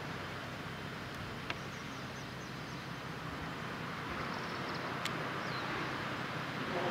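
Steady low drone of ship engines under an even wind and water hiss, with two brief sharp clicks and a few faint high chirps around the middle.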